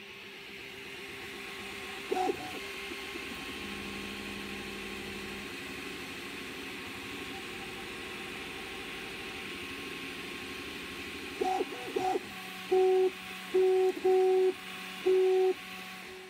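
Original Prusa i3 3D printer printing: a steady fan hiss under the even hum of its stepper motors. There is a short, louder pitched tone about two seconds in, and a run of short, louder tones of the same pitch over the last five seconds as the print head moves.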